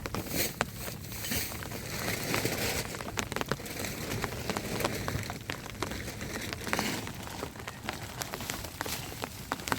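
Rain falling steadily, with many irregular sharp crackling taps over it.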